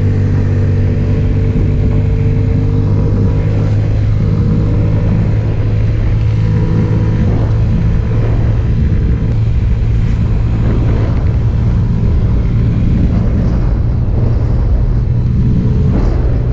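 Honda Ruckus scooter's 49cc four-stroke single-cylinder engine running steadily at cruising speed, heard from the rider's seat while riding.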